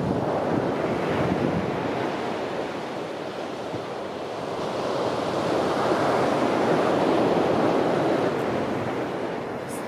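Steady rushing of wind and surf, swelling louder about halfway through and easing near the end.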